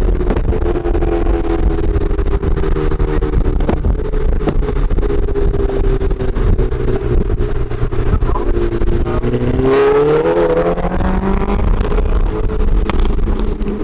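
Cars running at highway speed: a steady engine drone over low road and wind rumble, with a few sharp exhaust pops from the 2013 Volkswagen GTI as it spits flame. About ten seconds in, an engine revs up, its pitch rising as a car accelerates.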